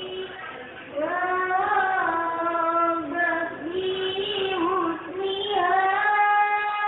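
A young, high voice singing a sholawat melody, with long held notes joined by ornamented slides. A new phrase starts louder about a second in.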